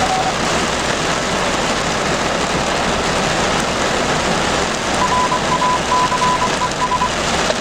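Steady hiss of heavy rain, with a short beep right at the start and, about five seconds in, a two-second string of high beeps at one pitch in a Morse-code pattern, typical of a ham radio repeater sending its callsign ID.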